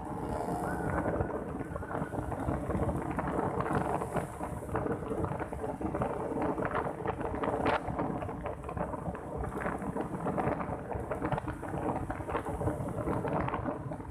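Wind and road noise buffeting the microphone of a camera riding on a moving motorcycle: a dense rumble full of crackling knocks and rattles, with a faint steady engine hum underneath.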